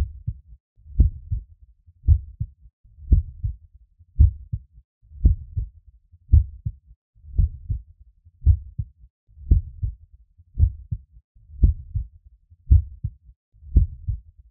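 Human heartbeat heard through a stethoscope: a steady, regular rhythm of about 56 beats a minute, each beat a pair of dull thuds, the first and second heart sounds ('poum-ta').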